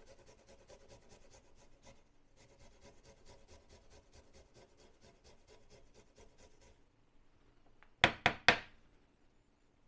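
A garlic clove being grated on a fine metal rasp grater: faint, quick rasping strokes for about seven seconds. Then four sharp knocks of the grater on a wooden chopping board.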